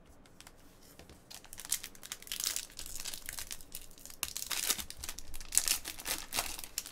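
Foil wrapper of a 2016 Topps Star Wars Masterwork trading-card pack being torn open and crinkled by hand: a run of crackling, rustling tears that starts about a second and a half in.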